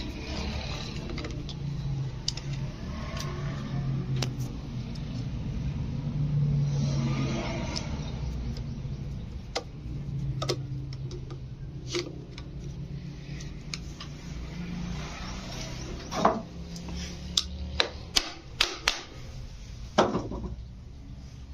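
Screwdriver turning the screws that hold the end cover on a pedestal fan motor, over a steady low rumble. Several sharp metallic clicks and knocks come close together in the last few seconds.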